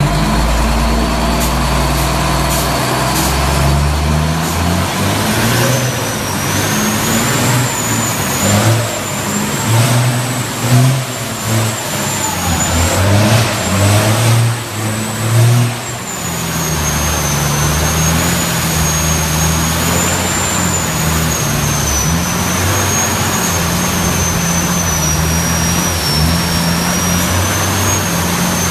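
Semi-truck's diesel engine revving hard in repeated surges, then held at high revs as the rear tyres spin in a burnout, with a high wavering whine over it.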